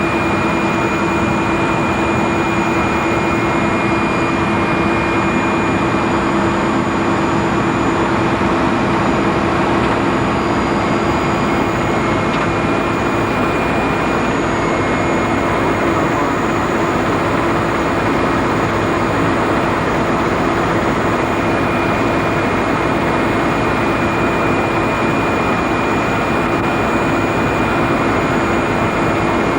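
Helicopter in flight heard from inside the cabin: a loud, unbroken drone of engines and rotor with a steady low hum and a high whine running over it.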